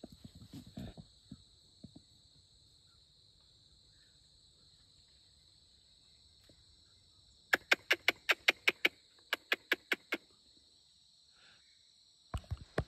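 A rapid run of about fourteen sharp chucking calls, about five a second, starts about halfway through, over a steady high drone of insects in the trees.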